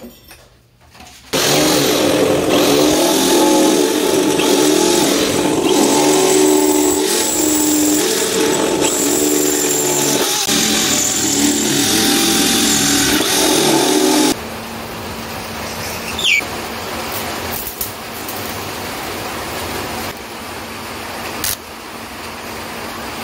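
Electric drill running as it bores holes through the rusted sheet-steel floor of a Vespa scooter chassis; its motor whine shifts slightly as the bit bites. About fourteen seconds in the drill stops, and a quieter, steady crackling hiss of arc welding follows, with a few sharp pops.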